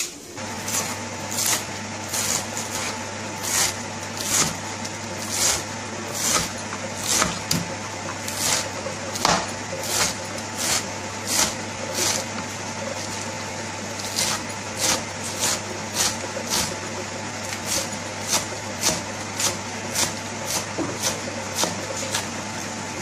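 Kitchen knife chopping fresh spinach on a wooden cutting board: a long series of sharp chops at roughly one to two a second, unevenly spaced, over a steady low hum.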